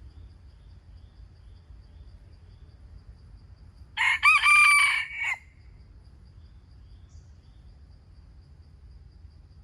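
A cock (wild junglefowl or rooster) crowing once, a single call of about a second and a half near the middle.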